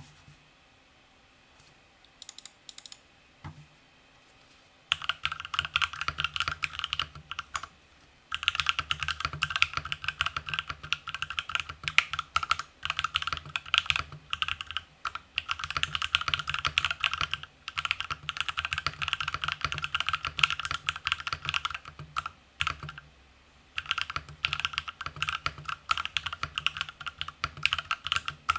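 Typing on a Freebird TKL mechanical keyboard with lubed Jwick Black linear switches in a top-mounted aluminium plate and PBT keycaps. A few lone key presses come first, then fast continuous typing from about five seconds in, broken by two short pauses.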